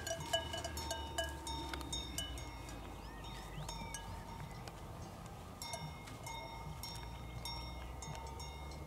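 Cowbells on grazing cattle clanking irregularly: sharp metallic strikes that ring on briefly. The clanking is thicker at the start, thins in the middle and picks up again later.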